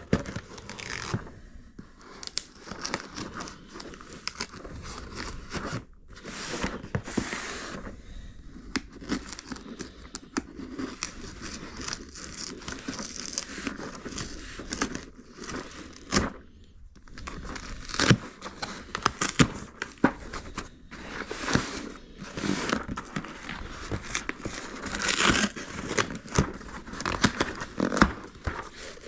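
A shipping package being opened by hand: tape and packing material tearing and crinkling, with irregular clicks and knocks as the contents are handled.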